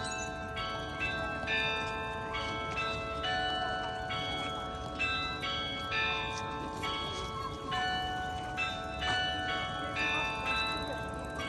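Several church bells ringing together, struck about twice a second in an uneven, overlapping pattern, each stroke leaving a long ringing hum under the next.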